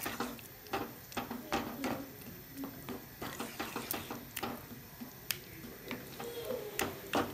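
Wooden spatula stirring thick potato gravy in a nonstick pan, with irregular scrapes and clicks against the pan.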